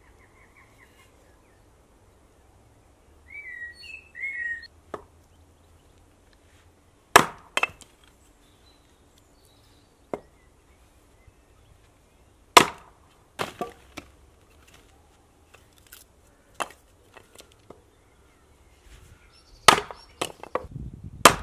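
A small axe chopping and splitting firewood on a wooden chopping block. Sharp chops come at irregular intervals a few seconds apart, with a quicker cluster near the end.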